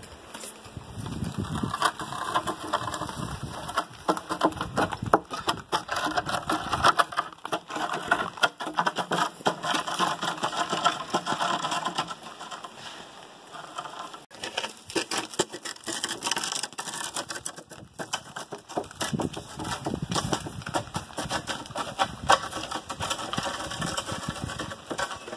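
Long sawn wooden boards lashed to a mule's pack saddle, dragged with their ends on the ground and crunching over a gravel road, with the mule's hooves and a man's boots stepping on the gravel: a dense run of crackles and clicks.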